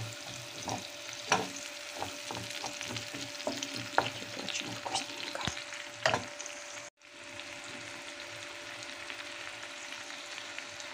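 Carrot, onion and grated tomato sizzling in oil in a frying pan while a wooden spatula stirs and knocks against the pan, many times over the first six seconds. After a brief dropout about seven seconds in, only the steady sizzle remains.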